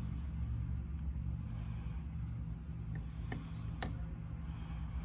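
A steady low mechanical hum, with two light clicks about three and a half seconds in.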